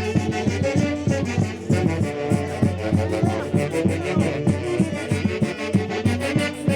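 A band playing Santiago, the festival music of Huancayo in Peru's central Andes, with wind instruments over a steady drum beat.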